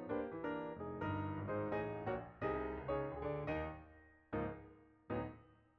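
Background piano music: a flowing run of notes that thins out, with two single notes struck near the end and left to fade.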